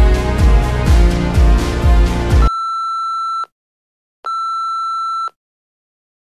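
Edited soundtrack music with a steady low beat cuts off suddenly about two and a half seconds in. Two long electronic beeps follow, each a steady high tone lasting about a second, with a short gap between them.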